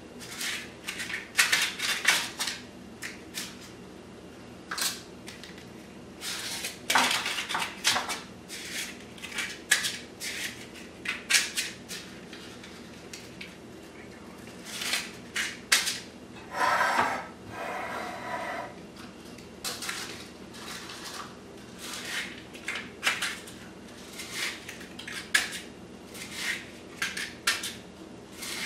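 Metal cupcake baking pans and kitchen utensils clattering and clinking, in irregular knocks and taps as they are handled, with a longer scraping sound about halfway through.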